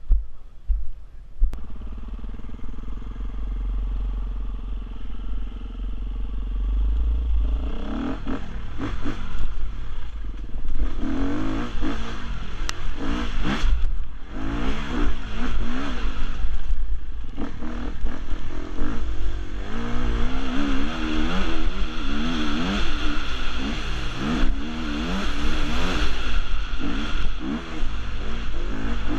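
A 2017 Husqvarna enduro motorcycle engine heard from the rider's helmet camera: steady low revs for about the first seven seconds, then revving up and down over and over as the bike rides a dirt trail, with a constant low rumble underneath.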